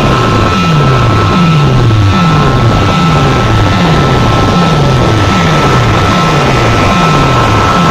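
Loud, distorted music from competing DJ sound-system rigs: a deep bass note sweeps downward over and over, about every three-quarters of a second, under two steady high tones and a wash of noise.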